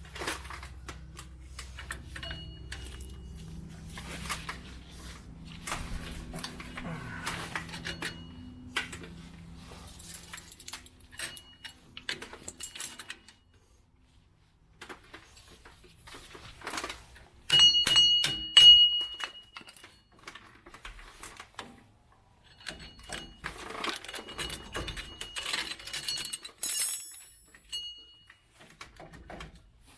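Metal hand tools and parts clinking, knocking and clanking while being rummaged through and handled, with a low steady hum in the first third and a loud cluster of ringing metal clanks a little past halfway.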